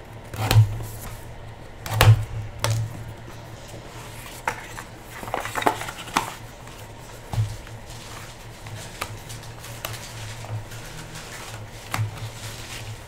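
Trading cards and their packaging being handled on a table: scattered sharp taps and clicks with brief rustles, over a low steady hum.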